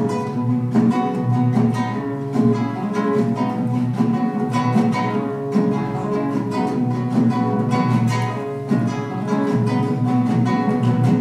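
Acoustic guitar played solo: a continuous, evenly paced run of plucked notes and chords.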